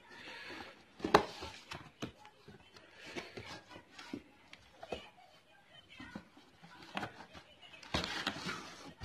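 Cardboard box being opened and handled by hand: scattered taps, scrapes and knocks, with a sharper knock about a second in and rustling of cardboard flaps near the start and again around eight seconds.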